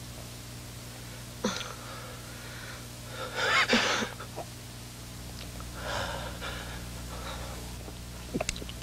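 Breathy gasps and moans, about four of them, the loudest one about three and a half seconds in, over a steady low hum.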